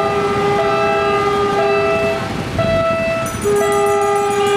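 Railway level-crossing warning signal sounding: electronic tones that alternate about once a second over a steady held tone.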